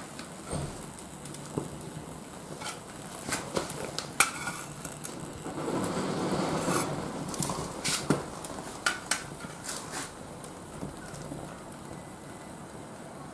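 Oga binchotan charcoal crackling and popping sharply as it catches in a chimney starter heated by an alcohol stove, with a short rush of flame about halfway through.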